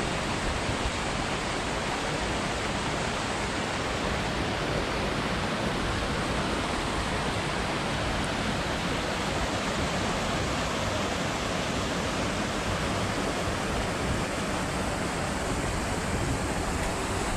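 Steady, loud rushing of a mountain stream and waterfalls, an even hiss without change, cutting off suddenly at the end.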